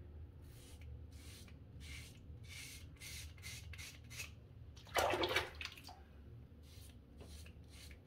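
Gillette SkinGuard two-blade razor scraping through two to three days of stubble in short strokes, about two a second, with one louder burst of noise about five seconds in.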